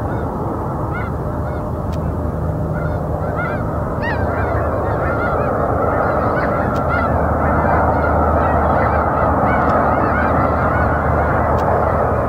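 A large flock of snow geese calling: a dense chorus of many overlapping honks, growing a little louder about four seconds in.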